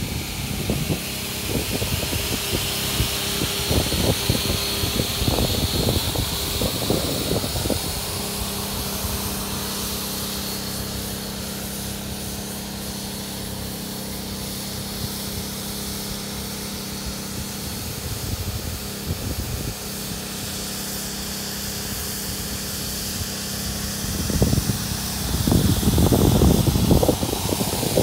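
Air pump running steadily, a hum with a rushing hiss of air, inflating an inflatable deck through two hoses. A louder buffeting rumble comes in near the end.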